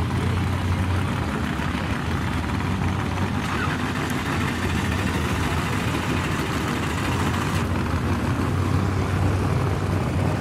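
Race-built Dodge Dakota pickup's engine idling steadily with a low hum while the truck rolls slowly.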